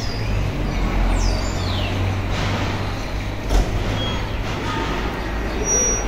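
A steady low engine rumble, like a motor vehicle running nearby, with a brief falling high-pitched squeal about a second in and a single knock past the middle.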